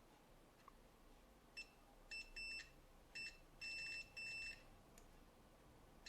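Multimeter continuity beeper sounding in a string of short, uneven beeps at one steady high pitch as the probes touch points on a circuit board; each beep signals a short, near-zero-resistance path at the probed point.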